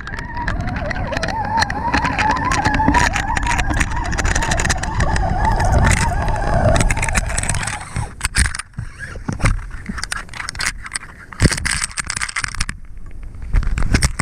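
Underwater sound picked up through a camera's waterproof housing: a dense rumble with a wavering hum. About eight seconds in the housing breaks the surface, and the sound turns to water splashing and sloshing against it, with sharp clicks and knocks.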